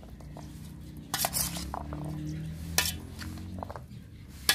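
Metal serving spoon stirring chaat ingredients in a stainless-steel bowl: soft scraping and squelching with sharp metal-on-metal clinks against the bowl about a second in, near the middle and at the end. A faint low hum runs under the first part.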